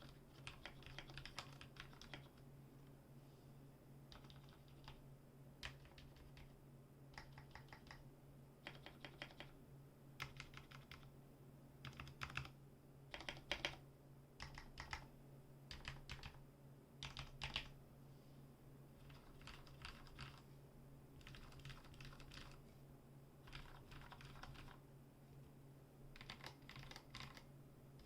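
Typing on a Ducky One 2 mechanical keyboard with spray-lubed Cherry MX Black linear switches and PBT keycaps: faint clacking keystrokes in quick bursts with short pauses between them. Under the keystrokes runs a faint steady low hum.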